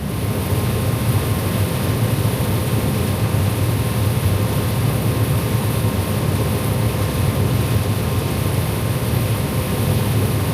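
Combine harvester running steadily while harvesting corn: a low engine rumble under a constant hiss.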